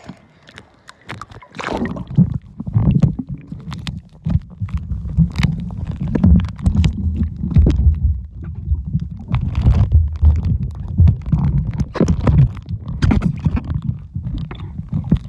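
Swimming-pool water heard through a phone's microphone held underwater: a muffled low rumbling and churning of water moving around the phone, with scattered clicks and knocks. It begins about a second and a half in as the phone goes under.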